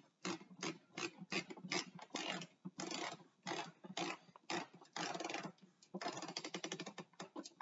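Manual typewriter mechanism clicking and ratcheting: irregular sharp clacks a few per second, with a denser run of rapid ratchet clicks partway through, as from the platen being turned.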